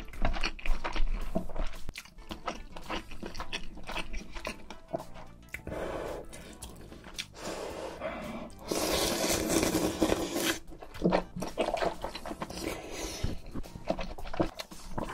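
Close-miked eating: chewing with crunchy clicks, then about nine seconds in a long slurp of jjamppong noodles lasting about two seconds, followed by more chewing.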